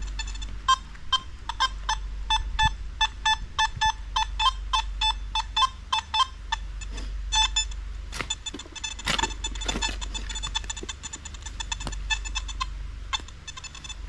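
Metal detector beeping in short, evenly repeated tones, about three a second, as its coil sweeps over a buried metal target. About eight seconds in a spade cuts and scrapes into the trail soil a few times, with fainter beeps continuing.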